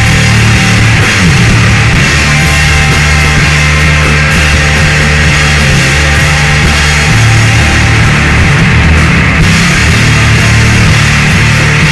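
Loud instrumental sludge metal played by bass, guitar and drums: long, low notes that change every few seconds over a constant wash of cymbals.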